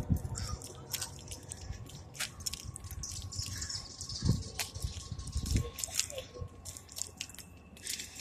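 Handling noise from a phone camera carried while walking: scattered soft clicks and rubbing, with two low thumps near the middle.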